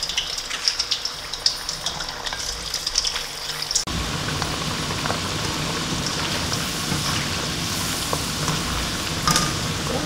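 Hand-cut potato fries deep-frying in hot oil in a stainless steel wok, the oil crackling and popping. About four seconds in it turns suddenly to a fuller, steady sizzle.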